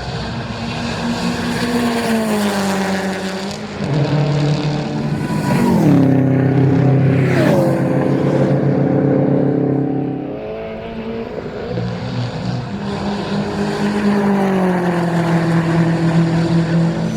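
Subaru race car's engine at full load on a circuit: its pitch climbs, drops sharply several times at gear changes or lifts, then climbs steadily again near the end.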